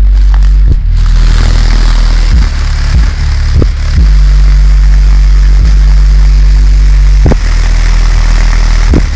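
A 12-inch Elevation Audio Execution car subwoofer pounding out bass-heavy music: long, deep bass notes that change every second or two, loud enough to overload the recording into a distorted rumble.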